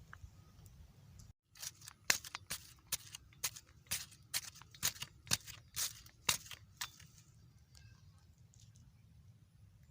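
A hand hoe chopping into dry soil, a quick run of crisp strikes about two or three a second that stops about seven seconds in, digging holes for planting corn.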